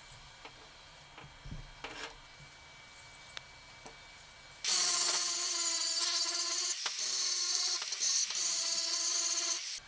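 Angle grinder with a thin cut-off disc working the end of a steel pipe. The whine and grinding hiss start suddenly about halfway through, dip briefly twice, and stop sharply near the end. A few faint handling clicks come before it.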